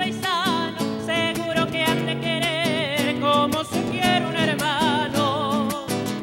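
Male voice singing a melody with marked vibrato, accompanied by two acoustic classical guitars strummed in rhythm: a live Argentine folk song.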